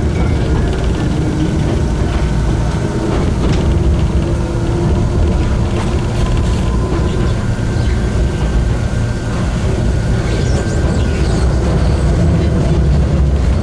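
Enoden electric train running between stations, heard from inside the car: a steady rumble of wheels on rail with a thin steady whine and scattered clicks.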